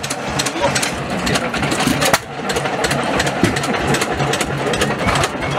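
Vintage stationary engines running, with a steady mechanical clatter of irregular knocks and clicks.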